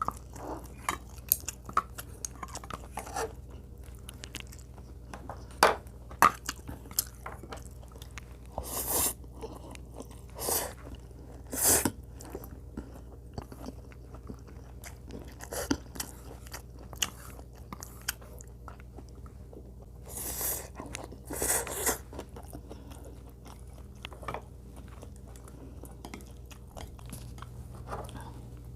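Close-miked eating: chewing and crunching of Korean side dishes, with scattered sharp clicks and a few longer, louder crunchy bursts, first about a third of the way in and again past two-thirds.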